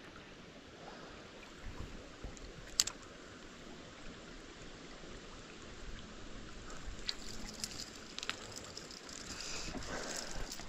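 Shallow creek water running over a riffle, a steady trickle that grows louder near the end, with a few sharp clicks, the loudest about three seconds in.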